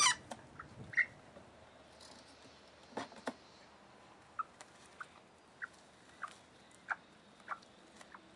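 Bantam hen giving short, high squeaky calls, one about every 0.6 s through the second half, after a louder call right at the start. Two sharp clicks a little under halfway through.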